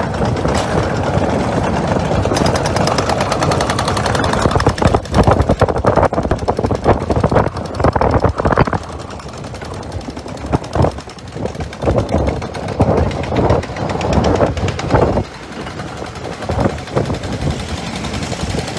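Hydraulic breakers on excavators and a backhoe loader hammering rapidly at a road surface, over diesel engines running. The hammering comes in spells and is loudest in the middle.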